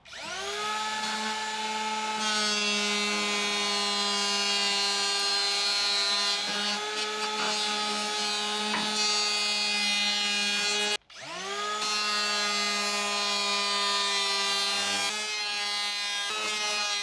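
Electric hand planer spinning up to a steady whine and shaving down the edge of a wooden wardrobe panel so it fits an out-of-true wall. It stops about eleven seconds in and is started straight up again.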